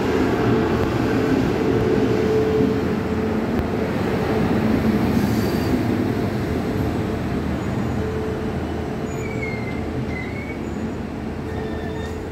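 Electric train passing close by: steady noise of its wheels on the rails, fading slowly over the last few seconds.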